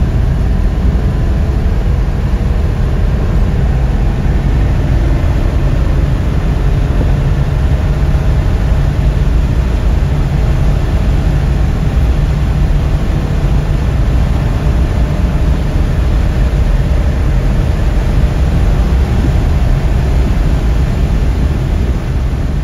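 1956 Chevrolet 150 driving at a steady speed, heard from inside the cabin: an even, low engine and road noise with no change in pace.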